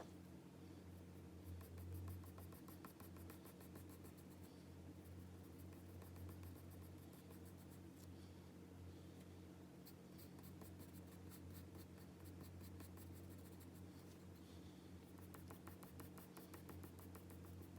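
Graphite pencil drawing on paper: faint, quick back-and-forth strokes in runs, as in shading, over a steady low hum.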